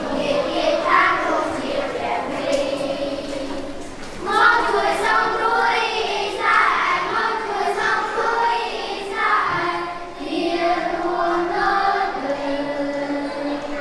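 A group of children singing together as a choir, in phrases with held notes.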